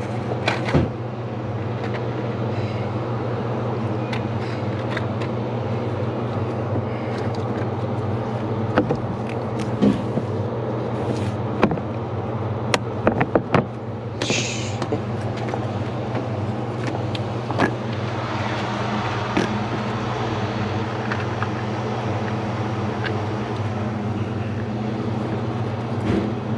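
Push clips and bolts being fitted to a plastic radiator fan shroud: scattered clicks and knocks over a steady low hum, with a short hiss about fourteen seconds in.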